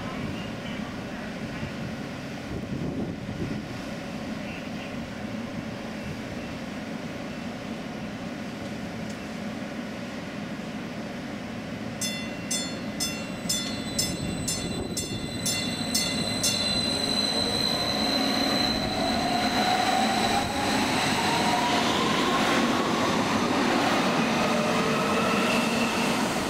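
MetroLink electric light-rail train pulling out of a station. A steady hum while it stands, a quick run of beeps about twelve seconds in, then the traction motors' whine rising in pitch as it picks up speed, growing louder as it passes.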